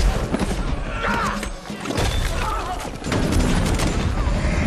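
Film sound-effects mix of explosions: a heavy blast with crashing debris and scattering fragments near the start, then fresh detonations with a deep rumble from about three seconds in, over an action film score.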